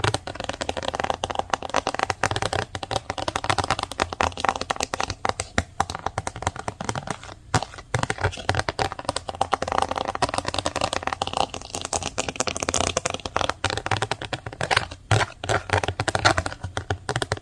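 Fast typing on a computer keyboard: a dense, rapid run of keystrokes with two brief pauses.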